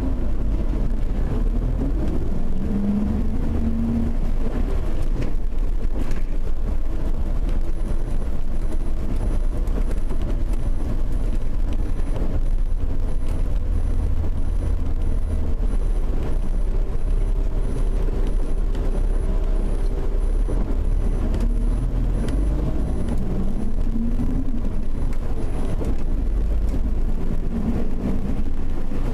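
Car engine and tyre noise from inside a moving car: a steady low rumble, with the engine note rising several times as the car pulls away and accelerates.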